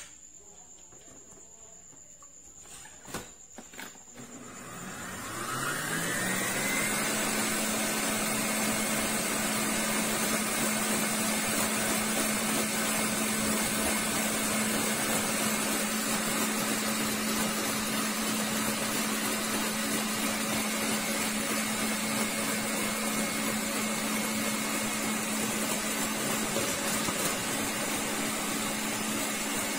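Hanabishi stand mixer with a wire whisk: a couple of knocks as it is set up, then about four and a half seconds in its motor starts with a whine rising in pitch and settles into a steady run. It is beating non-dairy whipped cream paste in a stainless steel bowl that is still a little lumpy.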